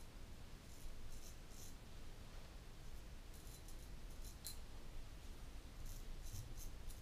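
Portland Razor Sprite straight razor scraping through lathered stubble on the neck: short, crisp rasping strokes that come in small clusters several times.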